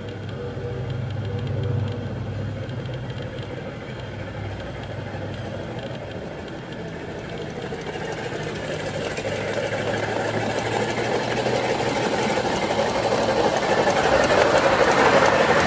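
A ride-on 1/8-scale model train approaching around a curve, its wheels running on the rails, getting steadily louder over the second half.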